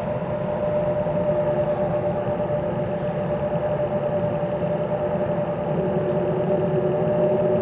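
Engine running steadily: a low rumble with a constant mid-pitched whine over it, and a fainter second tone that comes and goes.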